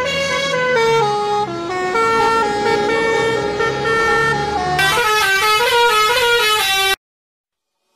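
Telolet basuri multi-tone bus horn playing a tune, its notes stepping up and down in pitch. The notes come quicker about five seconds in, and the horn cuts off suddenly about seven seconds in.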